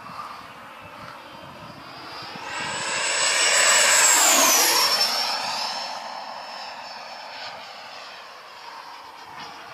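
A radio-controlled Skymaster F-18 jet's 120 mm, 880 kV electric ducted fan at speed, making a low fly-by. Its high whine builds, is loudest about four seconds in, then drops in pitch as the jet passes and fades away.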